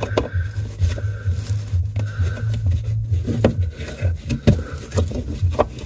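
A fog light bulb being worked into its plastic housing by a gloved hand: scattered light plastic clicks and knocks, over background music with a steady low beat.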